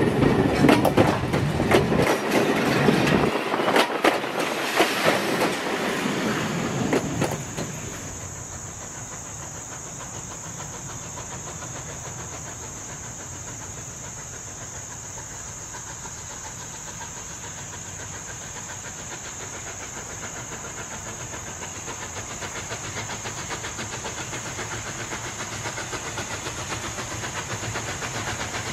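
Passenger coaches rolling past close by, wheels clicking over the rail joints, until the sound cuts off about seven seconds in. Then a steady high-pitched drone over a steam locomotive working toward the listener, its exhaust beats growing slowly louder near the end.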